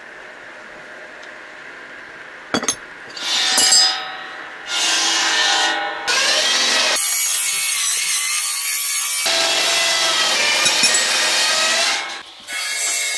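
A flat hand file scraping on metal in repeated strokes, starting about three seconds in, with a short break near the end.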